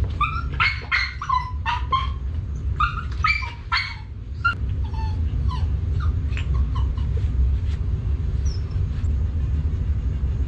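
A dog barks and yips excitedly in the background, in a quick run of short, high-pitched barks that thins out to a few fainter yips after about four seconds. A steady low rumble runs underneath.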